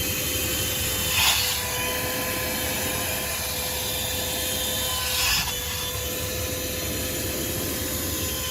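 THISWORX 12V corded handheld car vacuum running steadily with its crevice tool, a constant motor whine under an airy rush. Twice, about a second in and again about five seconds in, the crevice nozzle gives a brief rasping scrape as it works into the seat cracks to pull up sand.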